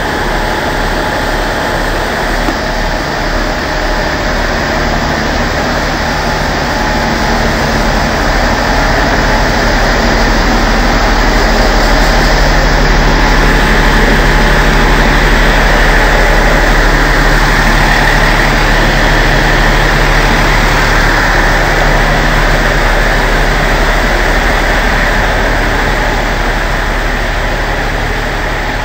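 Engine of a TH2100-type diesel railcar running as the car pulls out of the platform. The sound swells to its loudest about halfway through and then fades as the car moves away.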